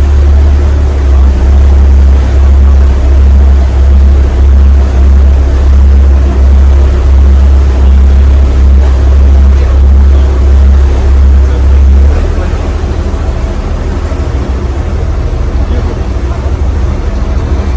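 Ferry engine running, heard aboard as a loud, deep drone that throbs about one and a half times a second. About twelve seconds in, the deep throb drops away, leaving a lighter, steady rumble.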